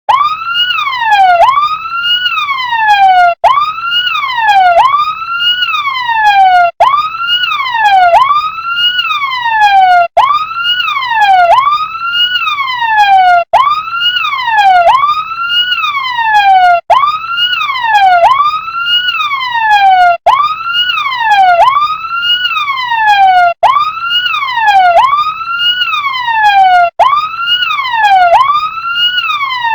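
Electronic siren of a toy RC fire truck wailing: the pitch sweeps up quickly and slides down more slowly, two sweeps at a time. The pattern repeats about every three and a half seconds with a brief cutoff between repeats.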